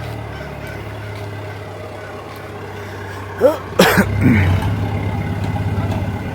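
Forklift engine running steadily with a low hum while it tows a heavy fifth-wheel trailer. A little past halfway come a few short honking calls and a sharp knock.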